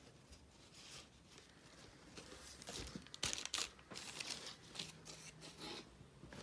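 Packaging rustling and crinkling as it is handled, in irregular scrapes that are loudest around the middle.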